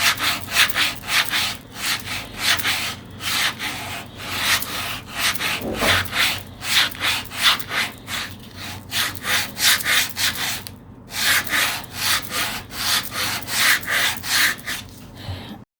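Sandpaper rubbed by hand over wood in quick back-and-forth strokes, a rapid rhythmic scraping, with a brief pause about eleven seconds in.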